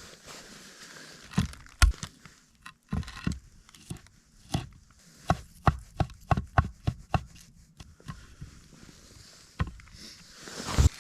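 A series of irregular sharp knocks, about fifteen of them, thickest in the middle, with a short rising rush of noise just before the end.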